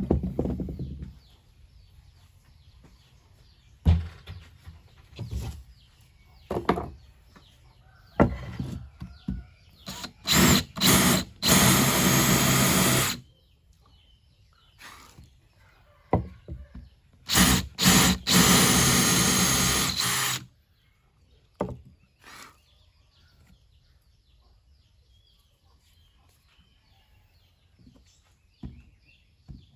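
DeWalt DCD791 18V brushless cordless drill/driver motor run in a few quick trigger blips, then held for about a second and later for about two seconds, with handling knocks and clicks between the runs.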